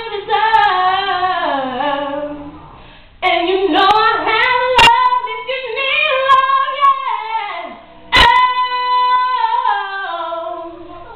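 A girl singing a cappella: drawn-out runs with long held notes and phrases that slide downward. Two sharp knocks cut in, about five and eight seconds in.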